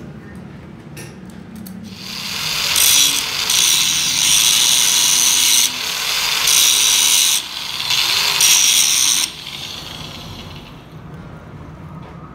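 Hand-held grinder's disc cutting into the steel end of a truck's front wheel spindle, a loud grinding that starts about two seconds in. It breaks off and bites again several times, then stops about nine seconds in, with the motor's sound dying away over the next second or two.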